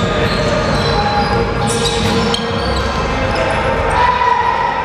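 Basketball bouncing on a hardwood gym floor amid the thud of players' running footsteps, echoing around a large gym hall.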